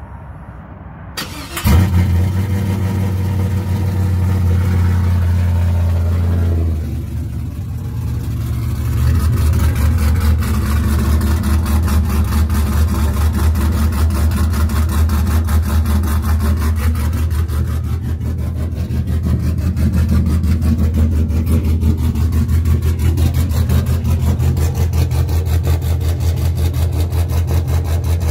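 Cold start of a 2001 Chevy Silverado's engine breathing through long-tube headers and a 3-inch straight-pipe exhaust: a brief crank, then it catches just under two seconds in. It runs at a raised fast idle for a few seconds, dips about seven seconds in, and settles into a steady, super-loud idle.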